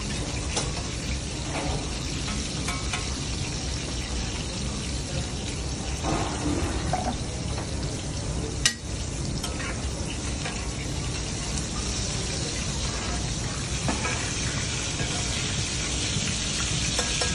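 Steak sizzling steadily in butter and olive oil in a cast-iron pan over charcoal, with rosemary and garlic in the fat, basted with a spoon at times. One sharp click a little over halfway through.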